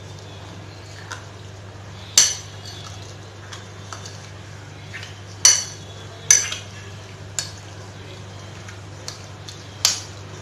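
A metal spoon stirring marinated chicken pieces in a glass bowl, clinking sharply against the bowl about five times, over a steady low hum.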